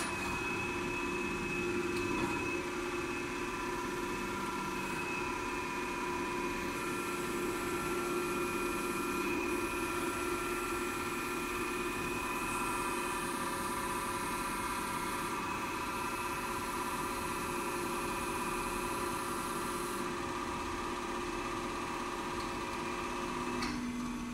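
Stankoimport 3E711B surface grinding machine running with a steady whine of several tones. Near the end it is switched off, and the sound drops as a lower tone briefly lingers while it runs down.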